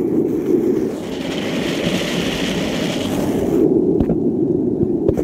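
Skateboard wheels rolling fast over asphalt, ridden sitting down street-luge style: a steady rumble, with a higher hiss for a couple of seconds in the middle and a couple of small knocks near the end.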